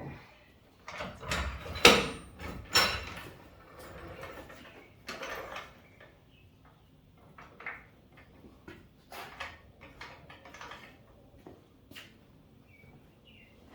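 A series of irregular metal clunks, knocks and scrapes as truck parts are shifted by hand, loudest about two and three seconds in, then lighter taps and rattles. A few short bird chirps come near the end.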